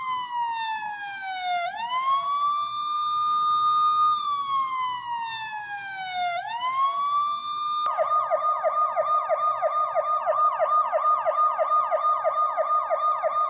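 Electronic siren of a 1:38-scale 2014 Chevrolet Camaro police car toy. It plays a slow wail that holds, slides down in pitch and snaps back up, twice. About eight seconds in it switches suddenly to a rapid yelp of about four sweeps a second.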